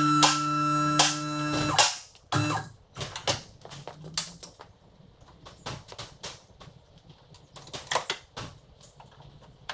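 Background music with a steady beat that cuts off about two seconds in, followed by scattered light clicks and knocks, one louder near the end, from parts being handled.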